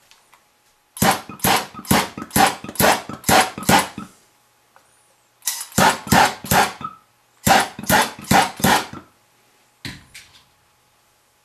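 A dog barking in three runs of quick, loud barks, about three a second, then two fainter barks near the end.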